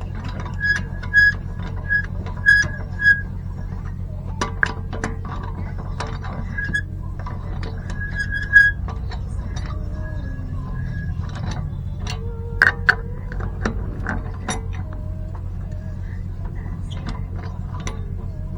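Scattered metallic clicks and clinks, like hand tools being handled during brake work, over a steady low hum.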